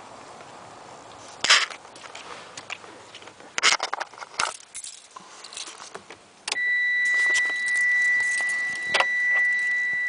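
A bunch of car keys jangling, with several sharp jingles in the first half. About six and a half seconds in, a steady high-pitched electronic warning tone from the 1995 Mitsubishi Eclipse switches on and holds as the key goes into the ignition.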